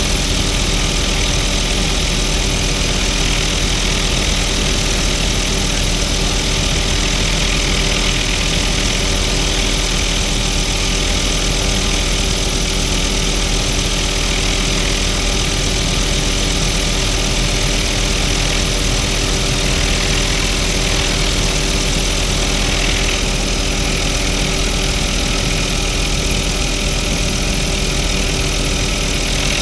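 Tour helicopter's engine and rotor running steadily in flight, heard from inside the doors-off cabin with a constant wind rush through the open side.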